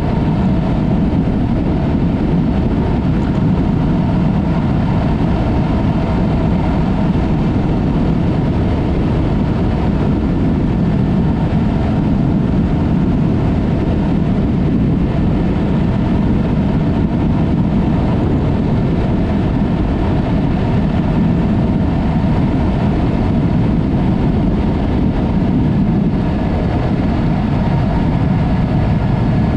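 Yamaha MT-03 motorcycle with an aftermarket Mivv exhaust running at a steady pace on the move, its engine drone blended with rushing wind noise.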